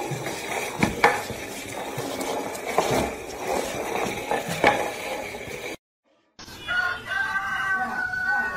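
Scraping and knocking on a tiled floor as a dog drags a potted plant. After a short break, a rooster crows: one long cock-a-doodle-doo that falls slightly in pitch at the end.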